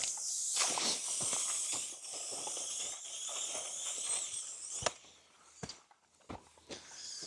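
Footsteps crunching through dry vegetation for about five seconds, with a crackly rustle full of small snaps, then a few separate sharp clicks near the end.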